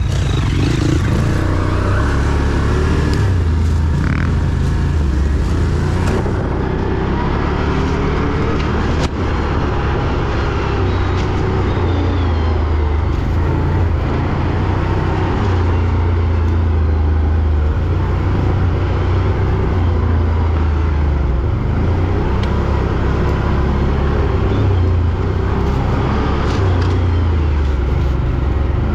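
Quad bike (ATV) engine running at varying revs as it drives along a trail, with one sharp knock about nine seconds in.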